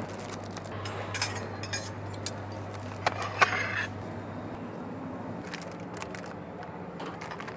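Handling food at a buffet counter: cling-film-wrapped sandwiches rustling as they are picked up and put back, with scattered light clicks and clinks of metal serving tongs and plates, over a steady low hum.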